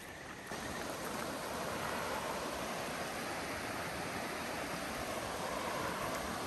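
Steady rush of water noise, starting about half a second in and holding even throughout.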